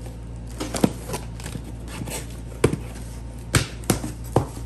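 Small hard parts and packaging being handled on a counter: a handful of sharp clicks and knocks, about six in all, most of them in the second half, over a steady low hum.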